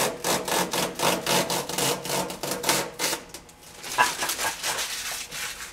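Protective plastic film being peeled off the heater's panel: a rapid stuttering crackle of about four pulses a second that fades out about three seconds in.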